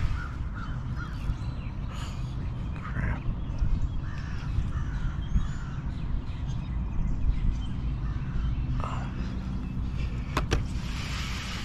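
Several short bird calls over a steady low drone, with two sharp clicks about ten and a half seconds in.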